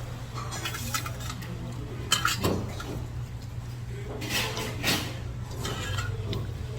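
Tableware clinking during a meal: utensils knocking against dishes in a scatter of light clicks, loudest about two seconds in and again around four to five seconds, over a steady low hum.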